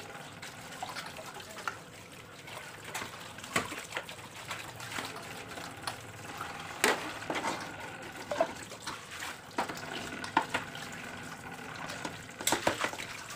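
A kitchen tap runs steadily onto stainless-steel dishes being rinsed in a sink. Sharp clinks and knocks of steel plates and pots against each other come every second or so.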